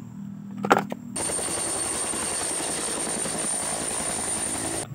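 A short clack of plastic toys being handled. About a second in, a hovering helicopter cuts in suddenly: a steady rotor beat over a high turbine whine, which cuts off just before the end.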